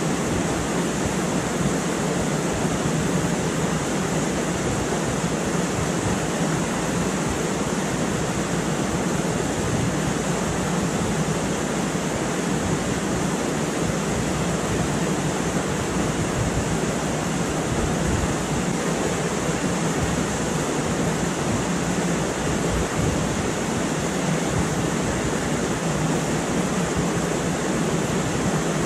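River rapids rushing steadily close by.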